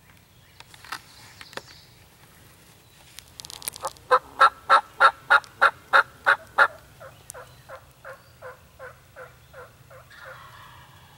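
A series of about eighteen turkey yelps, evenly spaced at nearly three a second, each note dropping in pitch. The first nine are loud and the rest softer, with a few faint clicks before the series starts.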